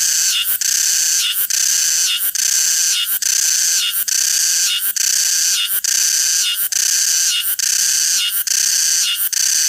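Cicada singing: a loud, continuous high-pitched buzz that pulses regularly, a little faster than once a second.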